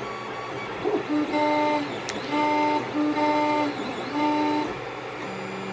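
Creality CR-10S 3D printer printing, its stepper motors giving four short bursts of a steady pitched whine as the print head moves, over a steady hum. The printer is standing directly on the table without vibration dampeners.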